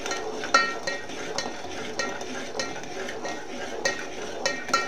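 Metal spatula stirring melting sugar and water in a metal pot on a gas stove, scraping and knocking against the pot's sides about once every half second to a second, each knock ringing briefly. The sugar is melting into syrup.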